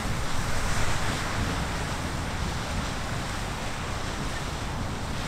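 Riverside Geyser erupting: a steady rushing roar of its jet of water and steam, with a low rumble of wind on the microphone.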